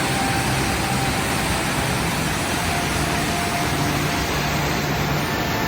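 Steady rush of a waterfall's falling water, an even noise with no breaks.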